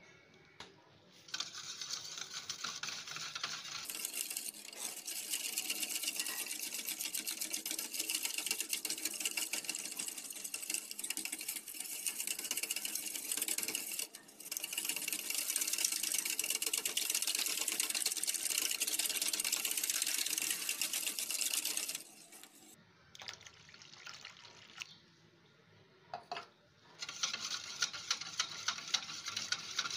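Wire whisk beating a wet yogurt and gram-flour batter in a stainless steel bowl: a fast, even run of clicking and scraping of the wire against the metal. It stops for a moment about halfway through, goes quiet for several seconds near the end, then starts again.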